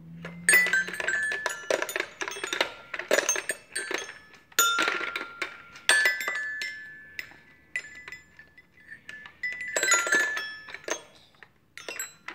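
A toddler banging on a toy xylophone with a mallet: irregular clusters of quick strikes on its bars, each note ringing briefly, with one longer ring about halfway through and a short lull near the end.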